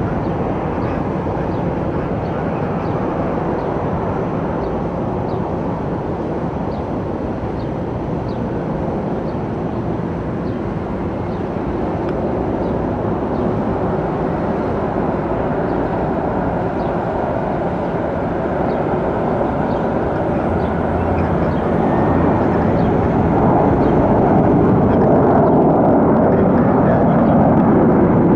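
Airliner jet engines running as a steady rushing noise that grows steadily louder through the second half.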